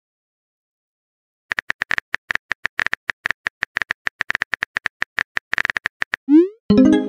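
Phone keyboard tap sounds clicking in quick, uneven succession as a text message is typed, starting about a second and a half in. Near the end a quick rising swoosh and a short buzzy tone sound as the message is sent.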